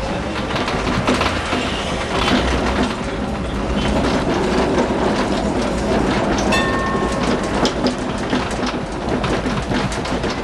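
Electric tram running along street track, heard from the front of the car: a steady low rumble of wheels and motors with frequent clicks and rattles from the track, and a brief tone about six and a half seconds in.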